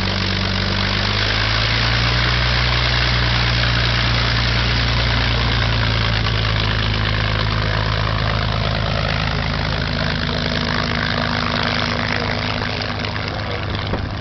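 P-51 Mustang's Packard Merlin V-12 engine running at low power: a steady, loud rumble that picks up slightly about a second in as the fighter starts to taxi, then grows a little fainter near the end as it moves away.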